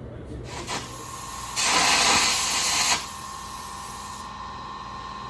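A welding arc hisses for about a second and a half, starting and stopping abruptly, like a short weld or tack. A faint steady hum runs beneath it.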